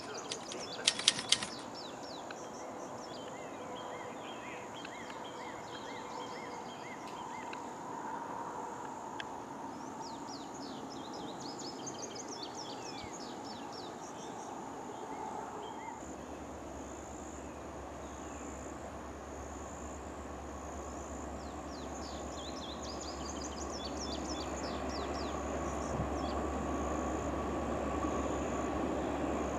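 Birds chirping over a steady high buzz, after a quick run of sharp clicks just at the start. From about halfway a low rumble comes in and grows louder toward the end: the diesel locomotives of an approaching Norfolk Southern train.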